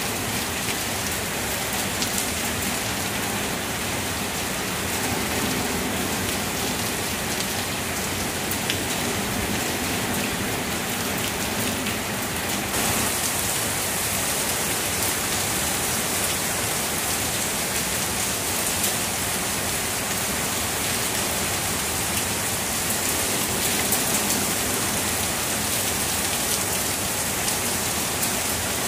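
Heavy rain pouring down steadily, a dense hiss with scattered drop ticks. The hiss turns brighter a little before halfway through.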